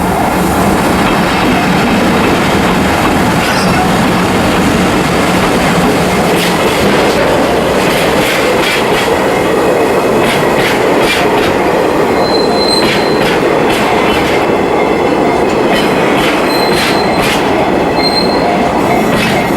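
A freight train of Taki tank wagons rolling past close by. The wheels click steadily over rail joints, with a few short, high wheel squeals in the second half.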